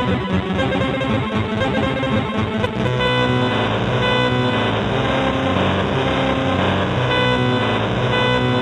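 Music: a busy, quickly pulsing passage of pitched tones that changes about three seconds in to steadier, longer-held chords.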